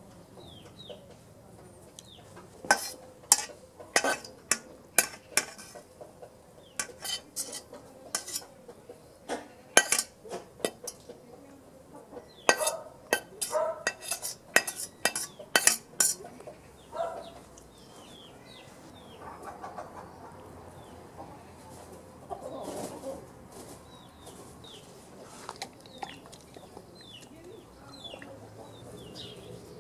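A utensil clinking and scraping against a metal pan as cooked onions are tipped out of it: a quick run of sharp metallic clinks that stops about halfway through, followed by softer, duller handling sounds. Birds chirp faintly in the background.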